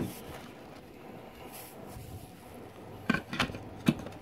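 Hard plastic knocks and clicks: one knock at the start as a cradle is handled, then a short run of sharp clicks about three seconds in as a Swissphone s.QUAD pager is pressed down into its desktop cradle.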